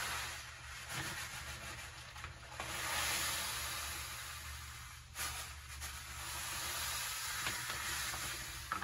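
Eco-Complete aquarium gravel poured from its bag into a filled aquarium: a steady rush of grains sliding out and into the water, with a short break about five seconds in.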